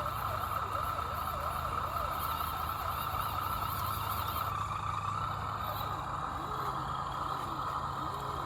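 Axial SCX10 radio-controlled crawler's electric motor and gearbox running steadily with a continuous whine.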